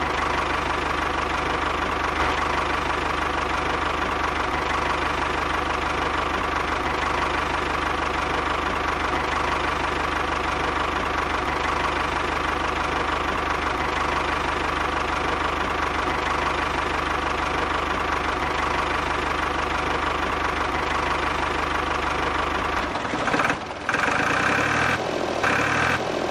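An engine running steadily at idle with an even, knocking beat; it changes character near the end as the deep part drops away.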